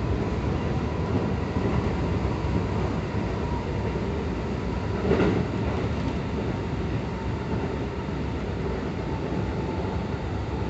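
Keikyu 1000 series commuter train with permanent-magnet synchronous traction motors running along the line, heard inside the car: a steady rumble of wheels on rail with a faint steady whine, and a single knock about five seconds in.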